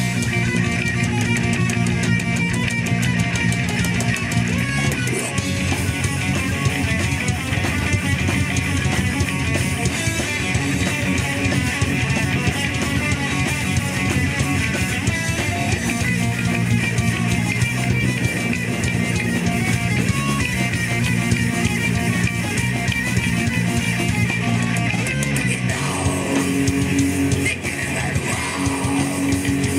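Live death/thrash metal band playing: distorted electric guitar and bass riffing over fast drumming on an acrylic drum kit. The riff changes about four seconds from the end, with a brief dip in loudness.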